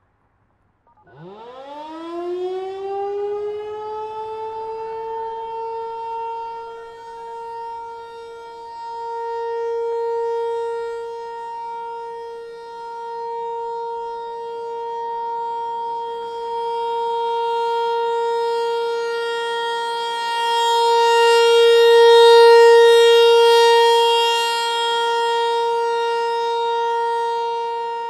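Federal Signal 508-128 rotating outdoor warning siren winding up about a second in and holding a steady alert tone. The tone swells and fades in loudness as the horn rotates. A second, fainter siren tone rises in around the middle.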